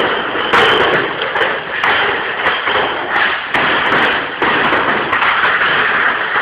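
Plastic beer crates full of glass bottles being heaved and set down onto a wooden pallet: repeated thuds and knocks with bottles clattering in the crates, over a continuous rattle.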